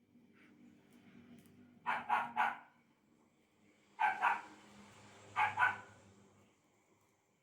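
A dog barking in three short bursts of two or three barks each.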